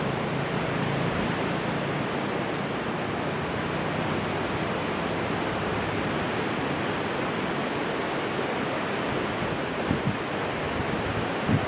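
Steady wash of ocean surf breaking on the beach, with light wind on the microphone that gives a couple of low bumps near the end.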